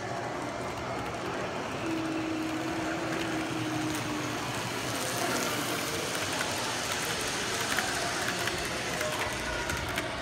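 N-scale Sounder commuter train model running past close by, its wheels rushing and clicking on the track over steady room noise, loudest as it passes in the middle of the stretch.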